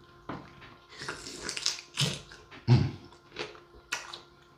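Close-miked eating sounds: chewing, lip-smacking and sucking in uneven bursts, with a few sharp clicks.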